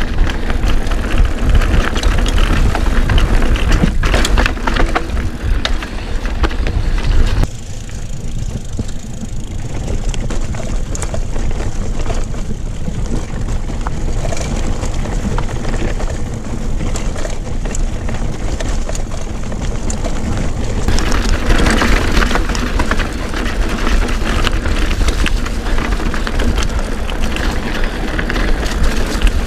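Wind buffeting an action camera's microphone over the rattle and clatter of a mountain bike riding a bumpy dirt trail. The sound turns duller about seven seconds in and brighter again after about twenty seconds.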